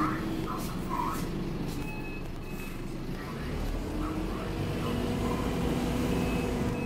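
Inside a Scania OmniCity double-decker bus under way: the steady low rumble of its five-cylinder Scania engine and road noise through the body, with light rattles and clicks. A few brief high-pitched tones sound, and the engine note picks up about five seconds in.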